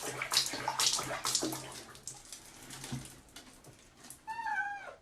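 Water splashing in the first two seconds, fading away, then a cat meows once near the end, a short call that falls slightly in pitch.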